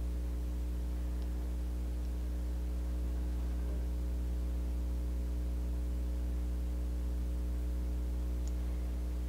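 Steady low electrical mains hum, a constant buzz with a ladder of overtones and no other sound.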